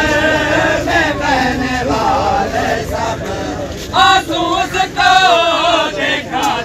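Men's voices chanting a noha, a Shia lament, together, growing louder about four seconds in.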